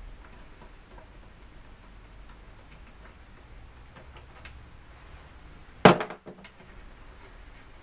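Tailpiece bolts of a ZF 5HP18 automatic gearbox being worked loose with a 13 mm socket: faint, irregular light clicks, then one loud, sharp knock about six seconds in.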